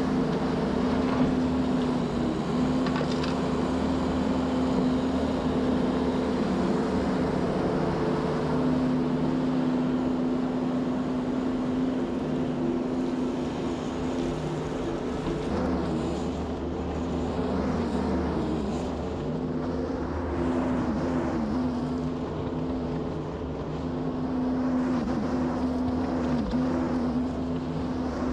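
Skid steer loader engine running steadily at working throttle, its pitch sagging briefly a few times in the second half as the machine takes load.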